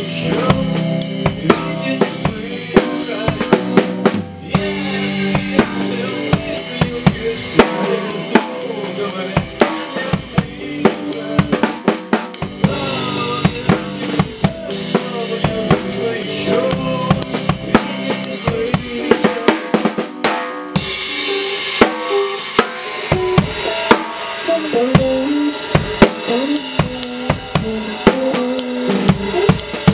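Band playing live on a drum kit, with snare and bass drum strokes in a steady beat over sustained pitched instruments.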